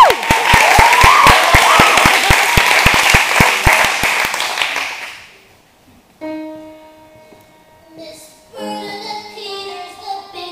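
Audience clapping and cheering, with claps in a steady beat of about four a second, dying away about five seconds in. After a brief hush, a musical intro of held chords begins.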